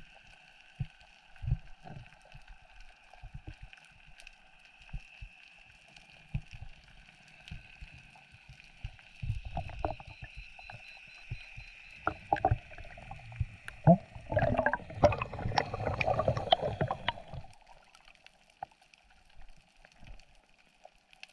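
Underwater sound on a freediving spearfishing dive: a steady whine with scattered knocks and clicks, then a burst of splashing and bubbling from about 14 to 17 seconds in.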